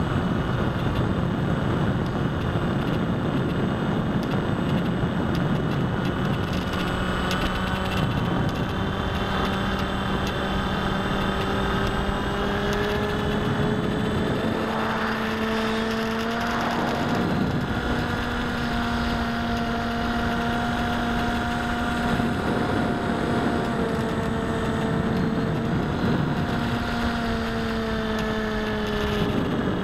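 Bixler foam RC plane's electric motor and pusher propeller humming steadily in flight, heard through the onboard camera. The pitch rises a little partway through and drops back near the end.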